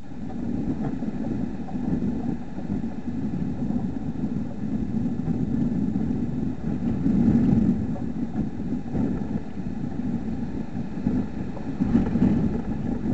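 Low, uneven outdoor rumble picked up by a trail camera's microphone, rising and falling, loudest about seven seconds in and again near the end.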